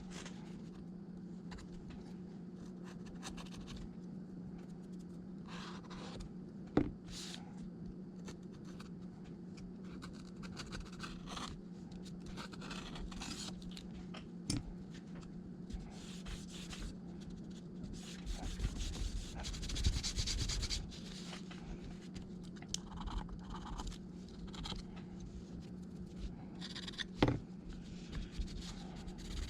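Small hand tools scraping, rubbing and clicking against an iPad during a screen and battery repair, with a few sharp clicks, over a steady low hum.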